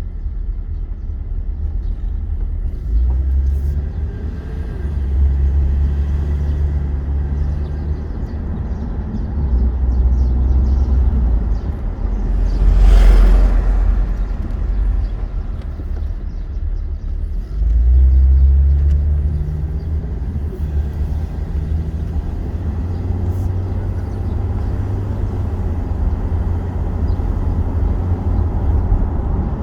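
Low, steady rumble of a car driving on the road, heard from inside the vehicle, rising and falling in level a few times. About 13 seconds in there is one brief louder surge of noise, like another vehicle passing.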